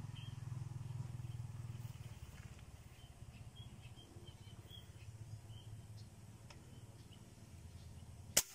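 A single sharp shot from a fishing air gun firing its line-tethered arrow into the water near the end, much louder than anything else. Before it, only faint high chirps over a low rumble that fades a couple of seconds in.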